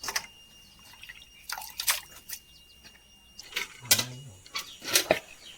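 Water splashing and dripping in a few separate sharp splashes as small mushrooms are washed in water.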